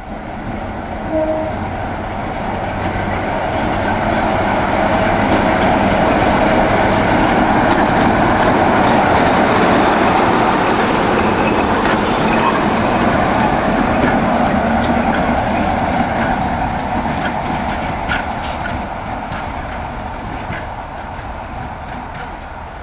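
BR Class 45 'Peak' diesel locomotive running light, its Sulzer twin-bank 12-cylinder engine running as it passes close by. It is loudest about eight to ten seconds in, then fades as it draws away.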